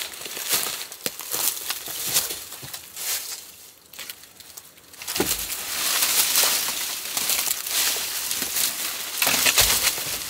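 Dry sticks and branches crackling, snapping and scraping as they are pulled out of an old stick shelter. Scattered snaps at first, then denser crackling from about five seconds in, with a couple of dull thuds as branches drop or are dragged.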